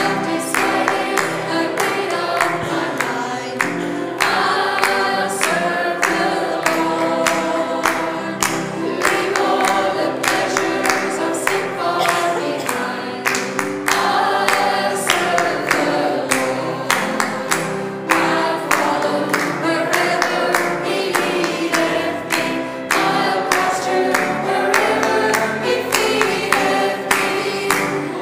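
Church congregation and a group of women singers singing an upbeat gospel hymn together, with steady hand-clapping on the beat.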